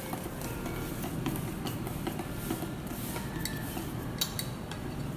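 A utensil stirring pancake batter in a bowl, with irregular small clinks and scrapes against the bowl and a couple of sharper knocks.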